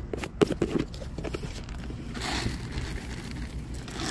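Footsteps on pavement, scattered clicks and knocks, with a brief rushing hiss about two seconds in.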